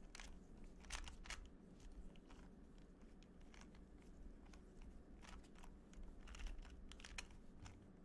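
Faint, irregular plastic clicks of a 2x2 Rubik's cube as its layers are turned through a solving algorithm.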